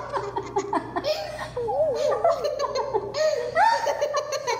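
A little girl laughing hard: a long run of high-pitched belly laughs in several bouts.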